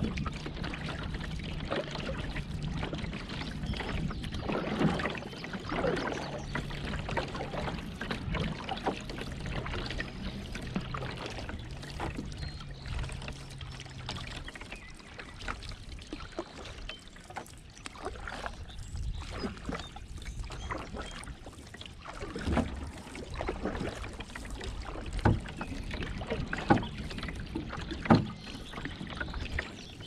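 Canoe paddle strokes dipping into and pulling through calm river water every second or two, with dripping and trickling between strokes and faint songbird calls behind. A few sharp, louder knocks come near the end.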